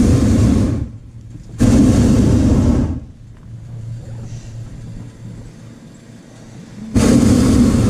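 Hot air balloon's propane burner firing in short loud blasts of about a second each: one ending just under a second in, one from about a second and a half in, and another starting near the end. A low, steady rumble carries on between the blasts.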